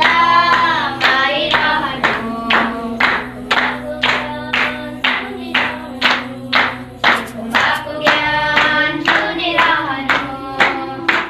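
A group of children singing a devotional bhajan in unison, clapping their hands in time about twice a second over a steady held low note.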